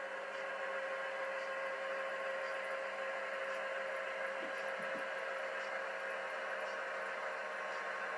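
Model train running on the layout out of sight: a steady hum with a few fixed tones and faint ticking, with two soft knocks about halfway through.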